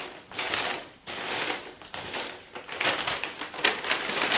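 Hands rummaging through loose polystyrene packing peanuts and packaging, giving an irregular run of rustling and clicking.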